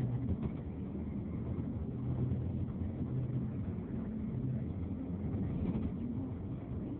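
Vehicle engine running with road rumble, heard from inside the moving vehicle as it drives along in traffic: a steady low hum that drifts slightly in pitch.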